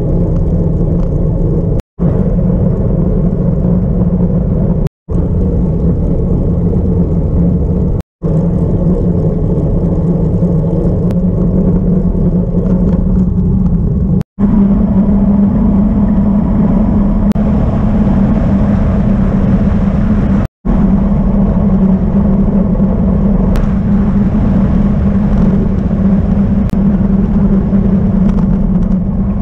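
Steady rush of wind and tyre noise from a road bike rolling on asphalt, picked up by a handlebar-mounted camera, broken into short clips by brief gaps of silence.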